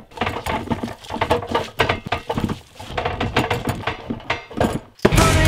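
Bench grinder running with a wire wheel, with irregular scratching and clattering as metal is worked against the wheel. Music starts near the end.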